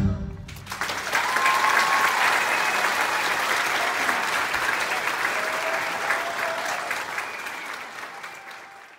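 Theatre audience applauding as a song ends. After a brief gap the applause starts about half a second in, with a few calls from the crowd. It holds steady, then fades away near the end.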